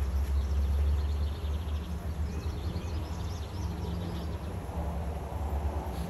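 Honeybees humming over an open hive, a low drone that comes and goes over a steady low rumble, with faint high chirps partway through.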